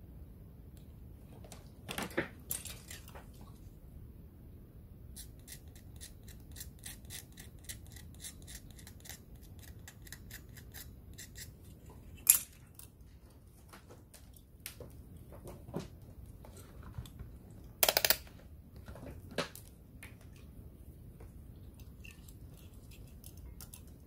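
Small handling noises on a workbench: a run of quick light ticks and a few sharper knocks as a remote control's circuit board and a multimeter's test probes are handled and put down.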